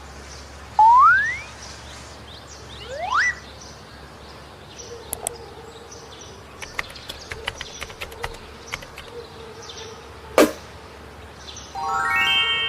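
A string of short cartoon-style editing sound effects: two quick rising whistle-like glides, then a run of light clicks and a single sharp click, and a chime-like tone near the end.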